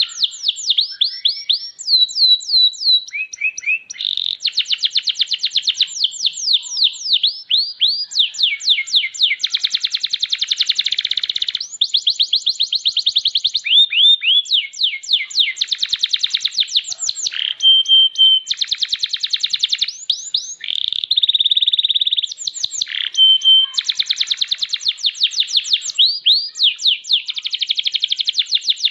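Domestic canary singing a long, nearly unbroken song of high, fast trills: runs of rapidly repeated notes that change pattern every second or two, with only brief pauses between phrases.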